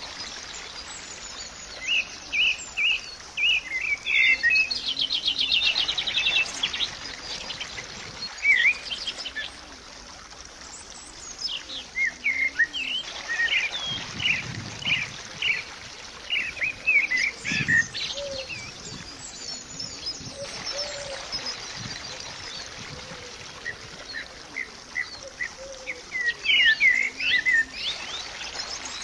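Songbirds chirping and twittering in short clusters of quick calls, with a rapid trill about five seconds in.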